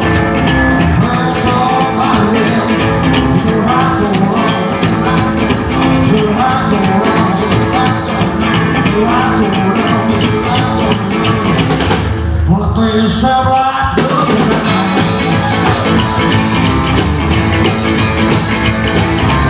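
Rockabilly band playing live: plucked upright double bass, drums and guitar, with singing at times. About twelve seconds in the band drops out for about two seconds, leaving mostly low sounds, then the full band comes back in abruptly.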